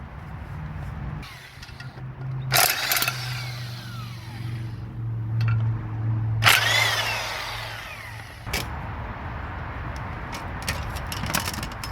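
A power tool run in two short bursts while loosening the clutch pressure plate bolts, each burst falling in pitch as the tool winds down, over a steady low hum. A few clicks follow near the end.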